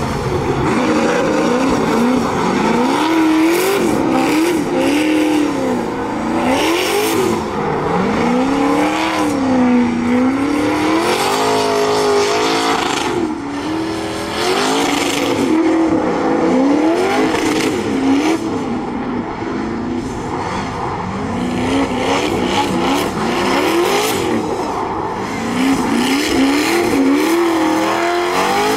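1100-wheel-horsepower Corvette drift car sliding through a drift: its engine revs rise and fall again and again as the throttle is worked, over the hiss and squeal of the rear tyres spinning.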